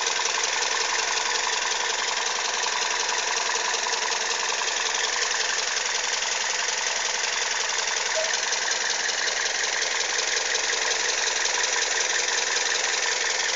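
Toyota Yaris engine running steadily with a fast, even ticking clatter: the strange noise whose cause the owner is asking about.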